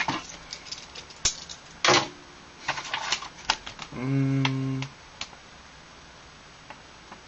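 Paper leaflets and plastic packaging being handled: a run of crisp clicks and crackles for the first three and a half seconds, then a man's short hummed 'mmm' about four seconds in.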